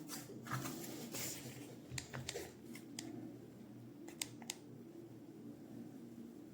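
A sharp click, a brief rustle of handling, then several separate small clicks, over a low steady hum.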